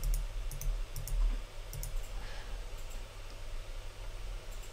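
Computer mouse clicks: a handful of short sharp clicks, most in the first two seconds and a few fainter ones later, over a low steady hum.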